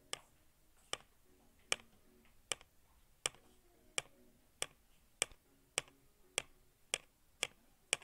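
Canon imageRUNNER 2202-series copier making an abnormal repeated click: about thirteen sharp clicks, coming faster over the few seconds, over a faint machine hum. This is the unusual-noise fault of this copier.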